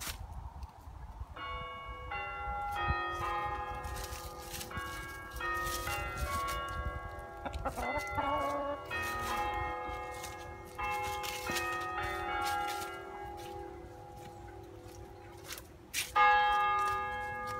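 Church bells ringing, a run of bells of different pitch struck one after another in quick succession, each note ringing on under the next; a fresh, louder round of strikes comes near the end.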